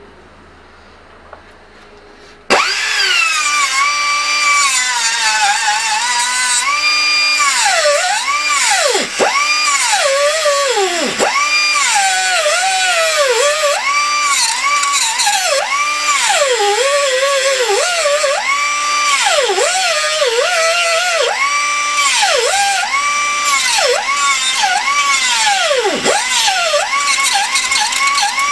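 An angle grinder starts up abruptly about two and a half seconds in and grinds the cracked steel of an exhaust pipe held in a vise. Its whine holds a steady pitch and dips sharply again and again before recovering, as the disc bites into the metal.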